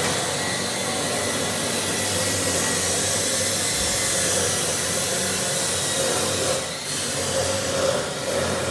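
Steady whirring, rushing noise of a motor-driven machine, dipping briefly about seven seconds in.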